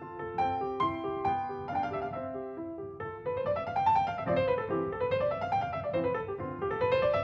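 Background piano music: a light tune of quick single notes, which becomes rising and falling runs about three seconds in.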